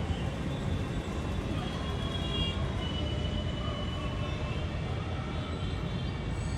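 Steady low rumble of city traffic, with faint high tones drifting in and out over it.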